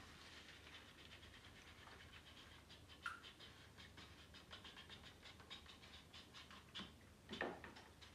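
Faint, rapid small clicks and slurps as a plastic syringe-style pichkari water gun is filled, its plunger slowly pulled up while the nozzle draws water from a mug.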